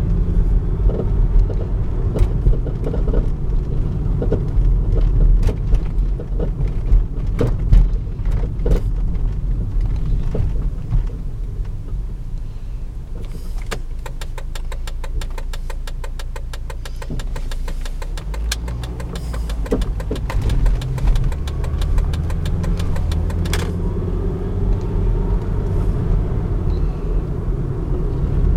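Volvo S60 being driven, with a steady road and engine rumble and a knocking sound: scattered sharp knocks in the first third, then a fast run of even ticks for several seconds in the middle.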